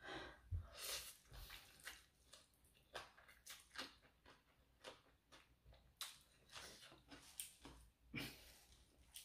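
Close-up eating sounds: a person slurping and chewing rice noodles in papaya salad, with short wet smacks and mouth clicks at irregular intervals.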